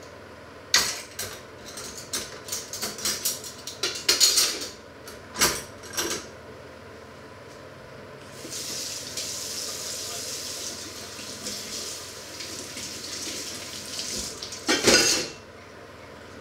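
Dishes and cutlery clattering in a stainless steel kitchen sink, then a tap running for about six seconds, ending in a last loud clatter of crockery.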